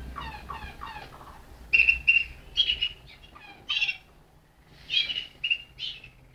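Malinois (Waterslager) song canary singing. It starts with a run of quick falling notes, then moves to louder, higher chirping phrases broken by short pauses, with a brief gap about four seconds in.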